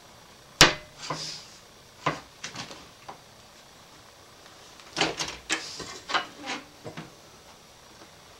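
A metal speed square and a Festool aluminium guide rail being handled and set against each other on a worktable: a sharp knock about half a second in, then scattered clicks and short scrapes, with a busier run of them near the middle.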